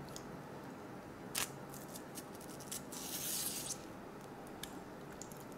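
Napa cabbage kimchi being torn lengthwise by hand close to the microphone: a wet ripping about three seconds in, with a few small clicks and one sharper click about a second and a half in.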